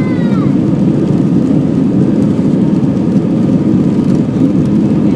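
Steady, loud rumble of an Airbus airliner's jet engines and airflow heard inside the passenger cabin.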